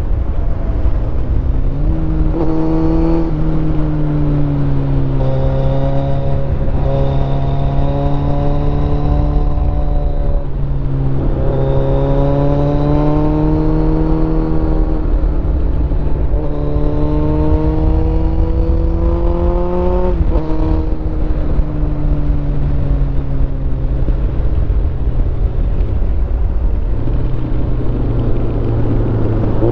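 Sport motorcycle's engine heard from onboard while riding, its pitch climbing and falling with the throttle through the bends and dropping sharply a few times, as at gear changes. Heavy wind rumble on the microphone runs underneath.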